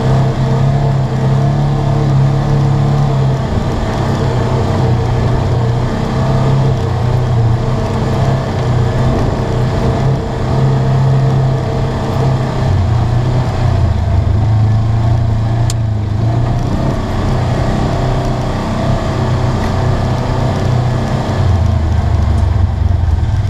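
Polaris RZR 900 side-by-side's twin-cylinder engine running under way, heard from inside the cab, its pitch shifting up and down as the throttle changes. There is a single sharp click about two-thirds of the way through.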